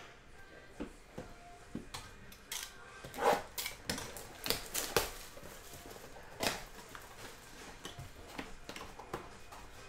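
Hands unwrapping and opening a cellophane-wrapped cardboard box of trading cards: irregular crinkling, rustling and light taps, loudest about three seconds in.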